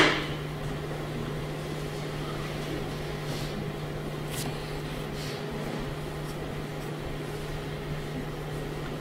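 Room tone with a steady low hum and a faint even hiss. A few faint clicks come about halfway through.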